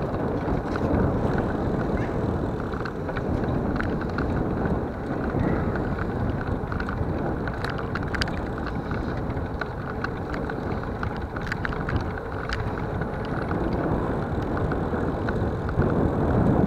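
Wind buffeting the microphone of a camera riding along a paved road, with a steady rumble and scattered small rattles and clicks from the ride.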